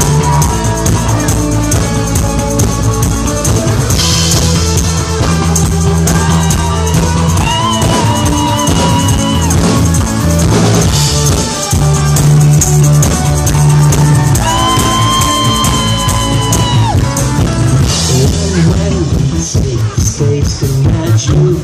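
Live rock band playing an instrumental passage of the song with electric bass guitar and drum kit. A high lead note is held twice, each time for two to three seconds, bending into pitch as it starts.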